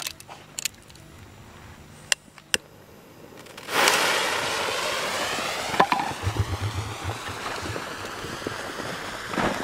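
Thick fuse of a large firework burning, a hissing, sputtering spray of sparks that starts suddenly about four seconds in and keeps going. Before that, only a few faint clicks.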